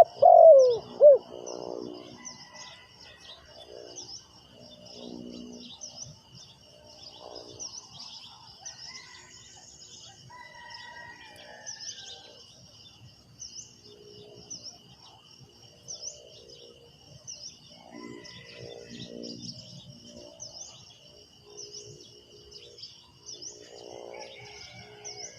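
Spotted doves cooing: one loud coo at the start, then softer coo phrases every few seconds, a decoy dove's call for luring wild doves. Steady high chirping runs underneath.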